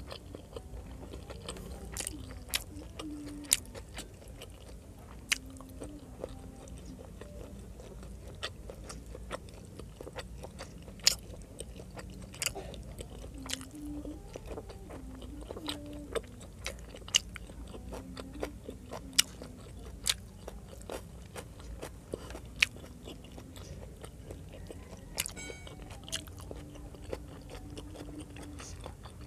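Close-miked chewing of pork adobo and rice, with sharp, irregular mouth clicks and smacks over a steady low hum.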